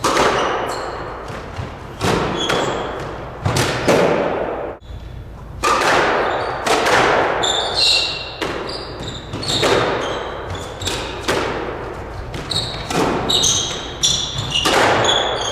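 Squash rally: the ball cracks off rackets and the walls about once a second, each hit ringing on in the enclosed court, with short high squeaks of shoes on the hardwood floor.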